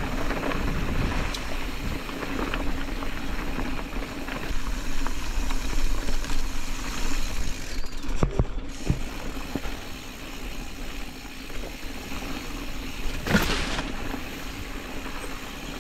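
Specialized Status 140 mountain bike descending a loose, rocky trail: tyres rolling and crunching over rocks and gravel with the bike rattling, and a few sharp knocks about eight seconds in.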